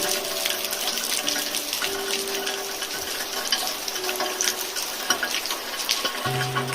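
Steady rain pattering, a dense crackle of drops, with soft held music tones over it. A low held note comes in near the end.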